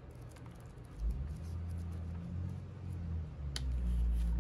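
Faint rustling and ticking of paper as a notebook's pages and cover are handled and leafed through, with a steady low hum coming in about a second in and one sharp click near the end.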